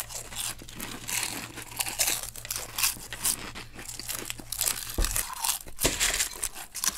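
Hurried eating: irregular crunching and crinkling of food being chewed and handled fast, with a dull knock about five seconds in.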